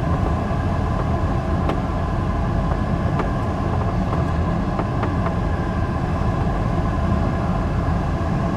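Steady rush of air over a Duo Discus glider's canopy and fuselage, heard inside the cockpit on final approach, with faint steady tones and a few light clicks.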